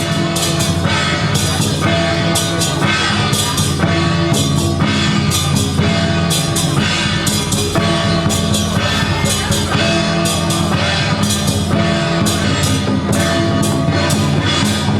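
Loud rock-style music with a drum kit playing a steady beat.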